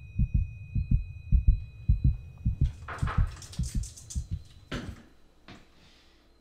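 Heartbeat sound effect: fast, regular low thumps under a steady high ringing tone. The ringing cuts off about three seconds in and a burst of rushing noise follows. The heartbeat fades out about five seconds in.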